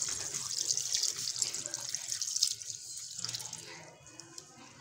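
Milk pouring in a steady stream into a pan of boiled carrot pieces, splashing. The stream thins and stops about three seconds in.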